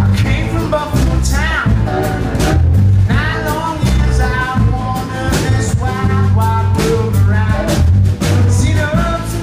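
Live folk-blues band playing: man singing over acoustic guitar, electric guitar, fiddle, upright bass and drum kit, with a steady beat.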